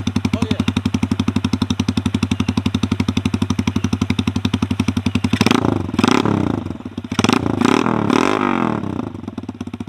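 An RPS Condor 150cc single-cylinder motorcycle idling through its aftermarket exhaust with a steady, even pulse. About halfway through, the throttle is blipped several times in quick succession, the engine note rising and falling with each rev, before it settles back to idle near the end.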